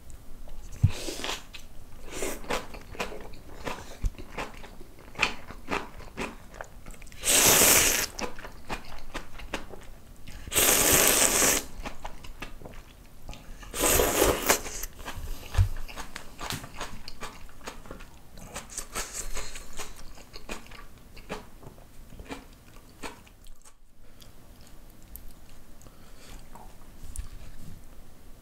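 Close-up eating sounds: a man chewing and crunching spicy kimchi with instant ramyeon noodles, with many small wet clicks of chewing. Three loud slurps of noodles come about 7, 11 and 14 seconds in.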